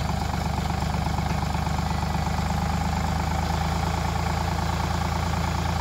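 Sonalika DI 750 diesel tractor engine running steadily with an even, fast firing beat while its hydraulics tip up the soil-laden trailer bed.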